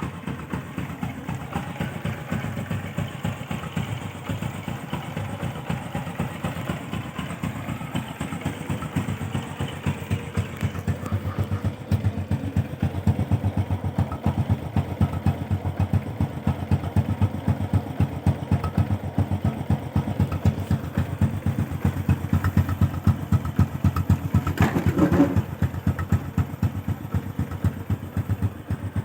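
Honda Supra X 125's single-cylinder four-stroke engine idling steadily, with an even beat of exhaust pulses. It runs a little louder from about twelve seconds in, and there is a brief higher sound near the end.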